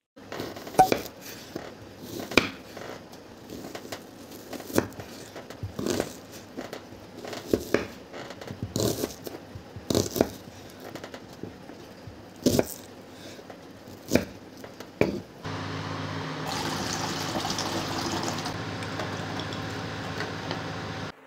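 A chef's knife chopping onion on a wooden cutting board: about a dozen separate strokes, a second or two apart. About fifteen seconds in this gives way to a saucepan of water at a full boil on an induction cooktop, a steady bubbling hiss that cuts off near the end.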